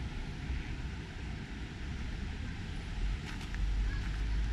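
Outdoor ambience: a steady low rumble that grows a little louder near the end, with faint voices in the background.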